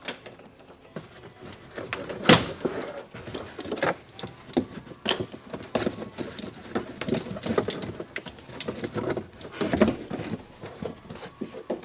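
Handling noise from a truck's floor carpet being lifted and pulled back over wiring: rustling and scraping with irregular clicks and knocks, the loudest knock about two seconds in.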